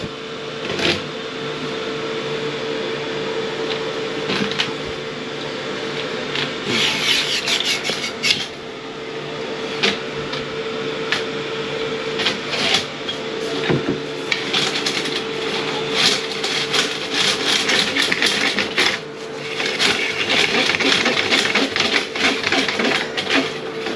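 Drain snake running down a slow-flushing toilet's drain line: a steady motor hum with the cable rattling and scraping in the pipe.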